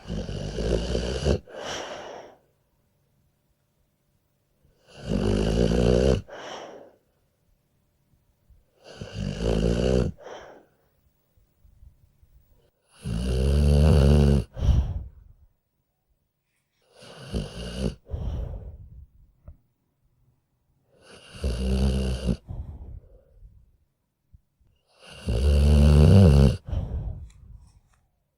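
A sleeping dog snoring in deep sleep: seven rattling snores about every four seconds, each lasting a second and a half to two seconds with a brief break near its end, and quiet pauses between them.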